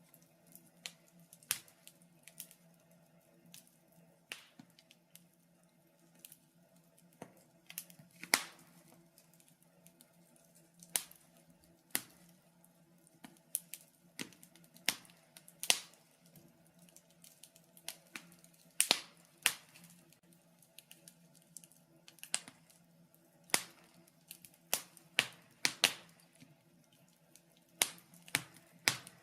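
Wood fire crackling: irregular sharp pops and snaps, some louder than others, over a faint steady hum.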